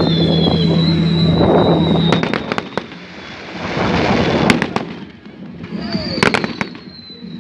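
Fireworks going off: sharp bangs and bursts of crackling, with long, slowly falling whistles early on and again near the end.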